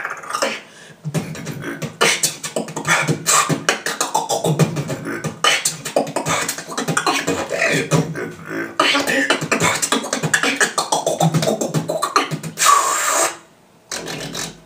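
A man beatboxing solo: a fast run of mouth-made drum clicks over a deep throat bass, with a loud hissing burst near the end before it stops.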